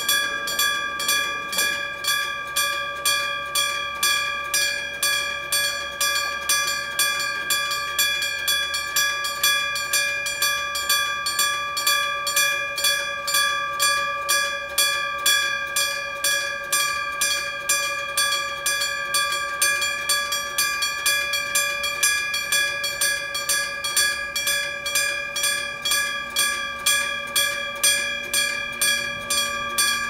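Kyosan electric level-crossing bell (denshō) ringing with even, rapid, unbroken strokes, a clear struck-bell tone. It is the crossing's warning that a train is approaching.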